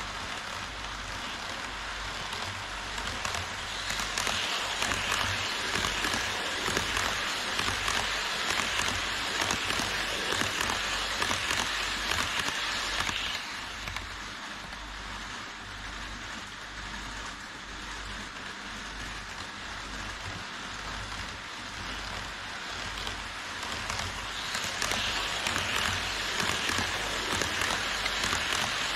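HO-scale model trains running on KATO Unitrack, their wheels and motors making a steady rattling hiss. A long container freight train runs past and its noise drops away about halfway through. An E5 Shinkansen model then comes in and passes near the end, and the noise grows louder again.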